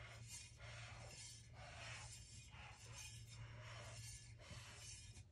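Near silence: a low steady hum with faint, soft hissy rustles repeating about every half second.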